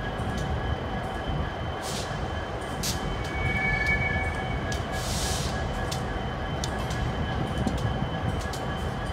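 Cars of a long Union Pacific intermodal freight train rolling slowly past, a steady low rumble broken by scattered clicks and knocks from the wheels and cars. A brief high squeal comes about three seconds in.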